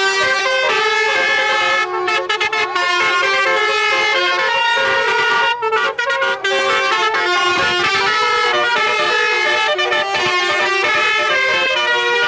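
Multi-tone telolet horn playing a tune: several horn tones sounding together and stepping from note to note, with a few short breaks.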